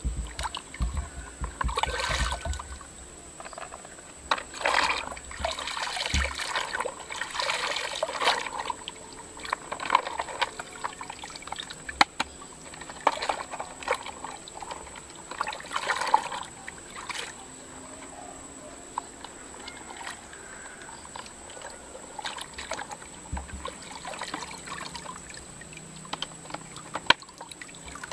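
Hands sloshing and scrubbing a plastic toy dump truck in a bucket of muddy water, in irregular splashy bursts that grow quieter later on. Near the end, water trickles out of the tipped truck.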